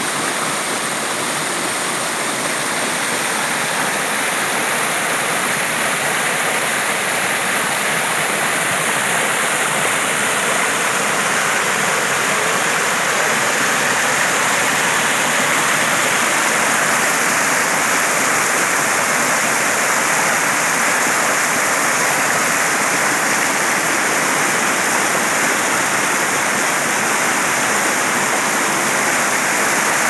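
A shallow forest creek rushing over flat rock into small rapids and white water: a steady, unbroken rushing of water.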